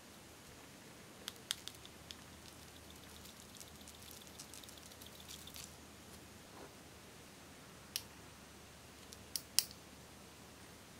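Small plastic vial handled with a few sharp clicks, then a light patter of tiny glitter and sprinkles falling into a glass bowl for a few seconds. Near the end, several sharp clicks as a plastic eyeshadow compact is snapped open.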